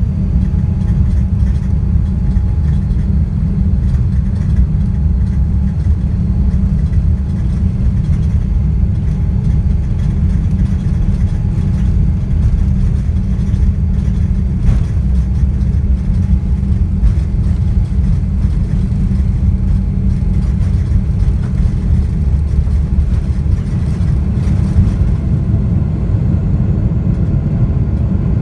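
GE90-115B turbofan engines of a Boeing 777-300ER heard from inside the cabin over the wing: a loud, steady, deep rumble that holds an even level throughout.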